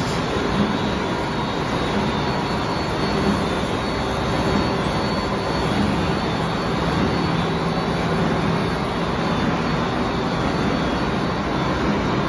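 Paper straw production line running at speed: a steady, even machine noise with a faint low hum beneath it.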